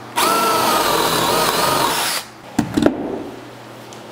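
Power drill boring a missed hole through a wooden wall stud: the motor runs for about two seconds under load, its pitch wavering as the bit cuts, then stops. A few sharp knocks follow about half a second later.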